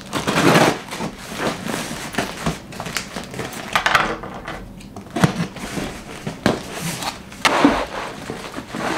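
A cardboard shipping box being handled, tipped and scraped on a wooden tabletop, with irregular rustling, scraping and a few clicks; near the end, clear plastic packing wrap crinkles as it is pulled from the box.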